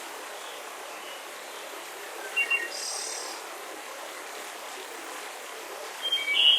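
Steady hiss of wind with birds chirping over it: a few short calls about two and a half seconds in, and a louder cluster of chirps near the end.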